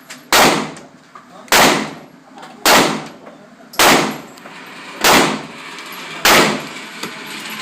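Six shots from a Ruger LC9 9mm compact pistol, fired at a steady pace of about one every 1.2 seconds, each a sharp crack with a short decaying tail.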